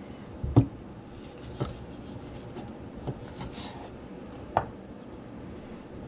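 Kitchen knife tapping and scraping on a wooden cutting board while fat is trimmed off raw chicken breasts: a few separate sharp knocks, the loudest about half a second in, with faint rubbing between them.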